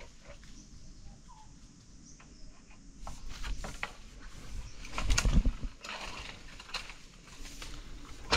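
Dry leaves and twigs crackling and snapping as they are handled and stepped on, with a low thump about five seconds in. A few faint bird calls sound in the quieter first three seconds.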